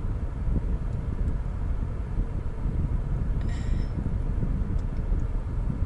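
Steady low rumble inside a car's cabin, with a brief soft rustle about three and a half seconds in.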